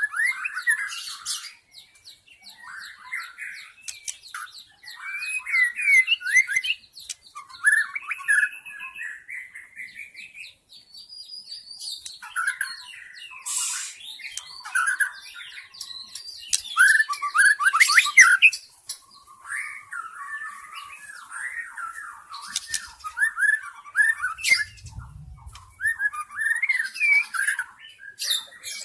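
Wild white-rumped shama singing: a long run of varied, rapid whistled and chattering phrases with sharp high notes, pausing briefly now and then.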